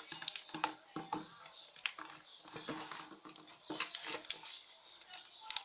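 Homemade slime being squeezed and kneaded by hand, giving off irregular small clicks and pops as trapped air bubbles burst.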